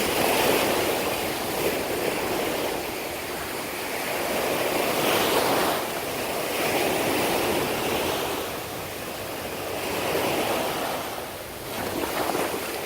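Ocean surf washing in, an even rushing noise that swells and fades in slow surges every few seconds.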